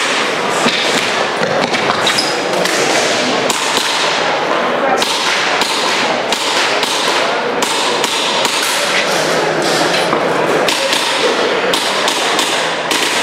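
An airsoft pistol firing many shots in quick, uneven strings, each a sharp short crack, over a continuous background of hall noise and distant chatter.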